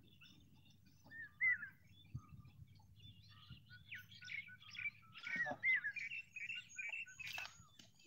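Small birds chirping: a few quick calls about a second in, then a busier run of short rising and falling chirps through the second half.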